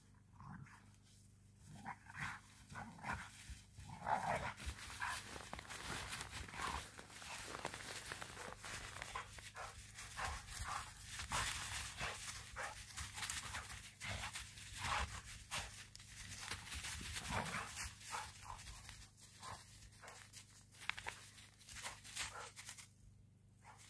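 Two dogs play-fighting on dry leaves and snow: irregular scuffling and rustling, with dog growls and vocal noises now and then. It starts about two seconds in and dies away shortly before the end.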